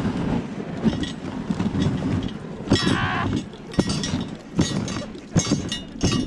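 Wooden dog sled running over packed snow behind a husky team: the runners hiss and rumble, and the frame and chain rattle and knock sharply over bumps, with a short squeal near the middle.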